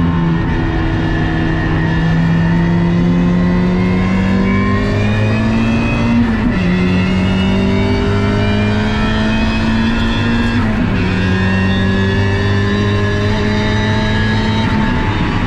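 Turbocharged four-cylinder car engine under hard acceleration on a race track. The revs climb steadily and drop sharply at upshifts about six and eleven seconds in.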